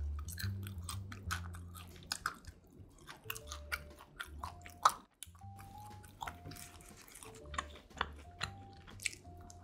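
A person chewing and biting pizza close to the microphone, with many crisp crunches of the crust. One sharp crunch about halfway through is the loudest.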